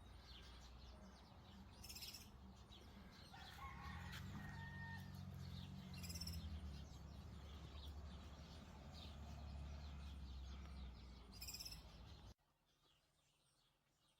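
Faint birds chirping over a steady low rumble, with a short pitched bird call about four seconds in. The sound drops off suddenly about twelve seconds in.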